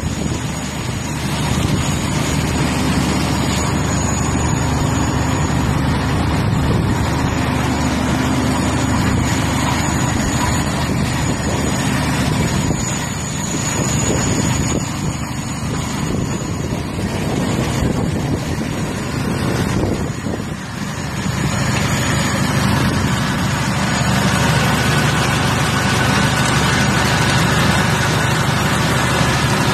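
Pump set running with a steady low machine hum and a faint high whine.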